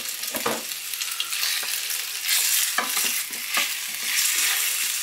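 Marinated pork strips sizzling in hot oil in a white ceramic-coated frying pan, while a silicone spatula stirs and spreads the meat, with a few light taps and scrapes. The sizzle grows louder about two seconds in, as the stirring turns the meat over.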